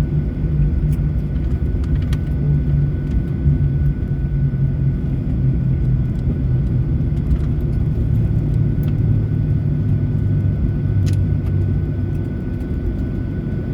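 Airliner cabin noise on descent: a steady low rumble of the engines and the airflow past the fuselage, with a faint steady thin tone above it.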